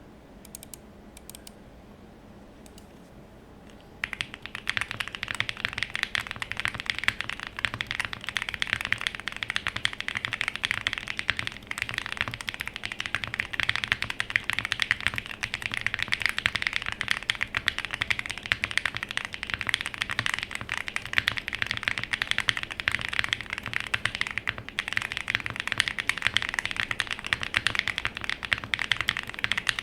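Fast, continuous typing on the alpha keys of an Owlabs Link65 mechanical keyboard: unlubed Qeekee tactile switches in an FR4 plate with foam, leaf-spring-mounted, under CRP Fujin keycaps. A few faint clicks come first, then the steady typing starts about four seconds in.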